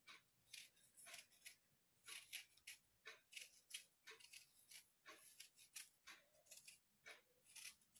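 Faint, repeated scraping of a small kitchen knife cutting the skin off a raw potato, about two short strokes a second.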